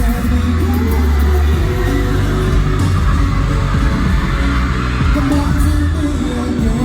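Live pop music played loud over a concert sound system, with heavy bass and some singing.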